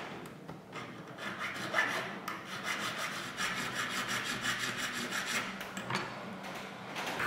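Hand file scraping across a small silver block in quick repeated back-and-forth strokes.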